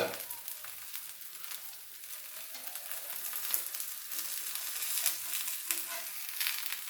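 An oats and bottle gourd roti cooking in ghee on a hot pan, sizzling steadily with fine crackles.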